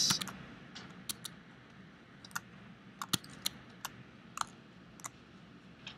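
Clicks from a computer mouse and keyboard, about a dozen single clicks at irregular intervals over a faint room hiss.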